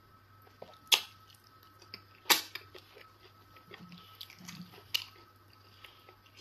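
Close-up mouth noises of chewing eba with egusi soup, wet and smacking, with three sharp loud clicks about one, two and a half and five seconds in.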